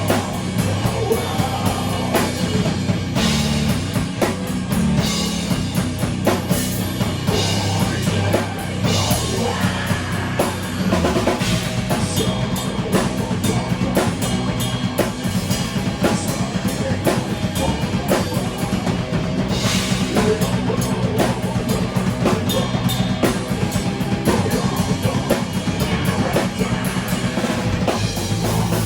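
Rock band playing live at rehearsal, with a full drum kit to the fore, bass drum and snare keeping a steady beat under guitars.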